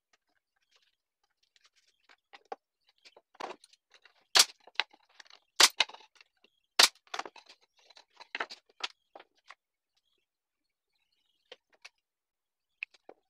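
Pneumatic nail gun firing three times into thin wood, about a second apart, each a sharp loud shot, amid lighter knocks and clicks of wooden pieces being handled on the bench.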